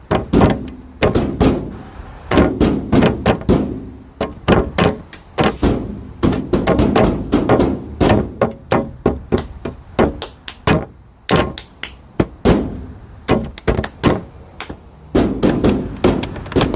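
Bare hands knocking, tapping and smacking, giving a quick, irregular run of hollow thunks, several a second.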